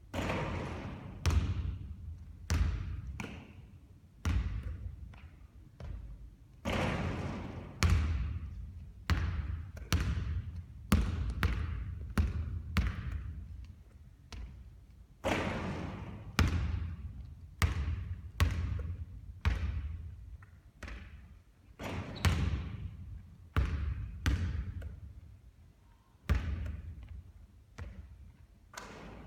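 Basketball bouncing on a hard court in a long series of sharp thuds, one or two a second at uneven spacing, each trailing off in a short echo.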